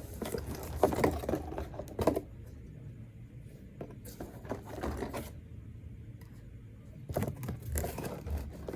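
Plastic fidget toys being handled, crinkling and scraping in three short bursts.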